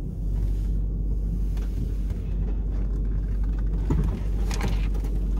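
Low, steady rumble of an L322 Range Rover heard from inside the cabin as it creeps down a steep dirt slope in first gear under hill descent control. A few brief knocks come near the end.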